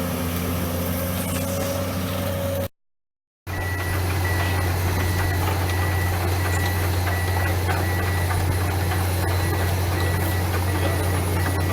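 Diesel engine of a Komatsu PC200-8MO amphibious excavator running steadily with a low drone. The sound cuts out for under a second about three seconds in, and after it a thin, steady high whine runs above the engine.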